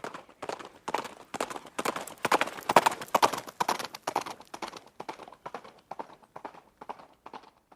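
Horse's hooves clip-clopping in a steady rhythm, about three or four strikes a second, growing louder toward the middle and fading away near the end.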